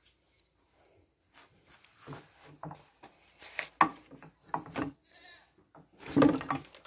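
A young goat bleating once near the end, a short call, after scattered small knocks and rustles.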